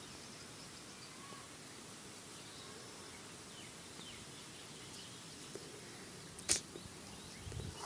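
Faint steady background hiss with a few faint high chirps, and one sharp click about six and a half seconds in.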